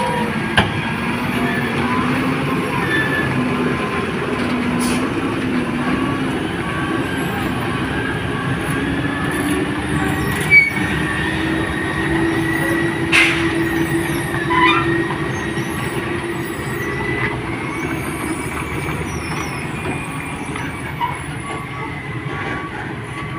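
Heavy truck engine labouring at low revs while a loaded semi-trailer climbs a tight hairpin, its pitch slowly rising and falling, with a high whine gliding above it and a few sharp clicks.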